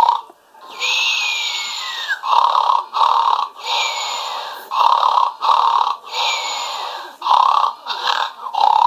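Snoring toy bear playing a recorded snore in a strict loop, about three times: each cycle is a long hissing breath with a whistle falling in pitch, then two short snorts.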